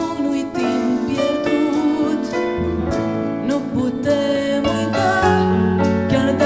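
A woman sings a song live into a microphone, backed by a big band.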